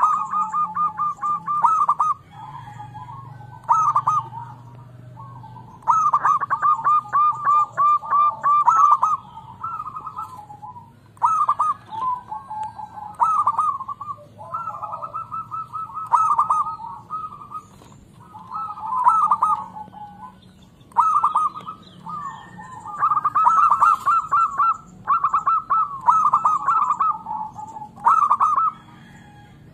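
Zebra doves (perkutut) calling: bursts of rapid rolling coos, each a second or two long, repeating with short pauses between, over a faint low hum.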